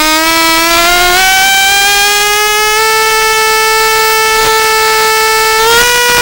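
Motor of a small propeller-driven flying craft, running at speed. Its pitch climbs over the first three seconds, holds steady, then rises a little near the end.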